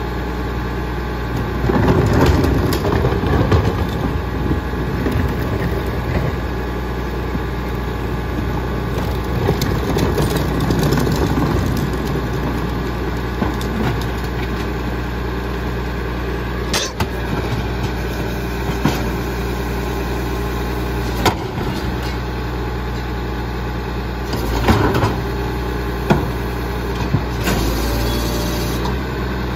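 Diesel engine of a Labrie Expert split-body side-loader garbage truck idling steadily. There are louder, rougher stretches of noise about two seconds in and again around ten seconds. Later come a few sharp knocks as trash carts are handled at the hopper.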